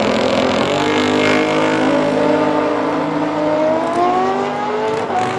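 A drag-racing car and a sport motorcycle launching off the line and accelerating hard down the strip, engine pitch climbing steadily from about half a second in.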